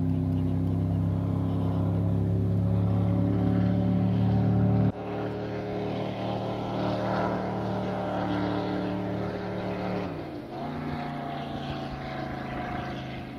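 Phantom 21 powerboat's V8 inboard engine running at speed across the water, a steady drone. It drops abruptly in level about five seconds in, then dips slightly in pitch a little after ten seconds and runs on steadily.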